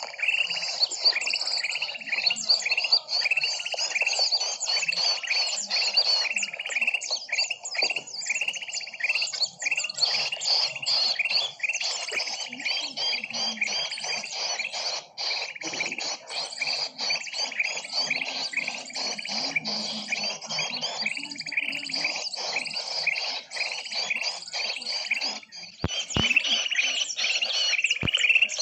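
Dense chorus of many small birds chirping and twittering rapidly, the calls overlapping without a break: a mixed-species bird-lure (pikat) recording.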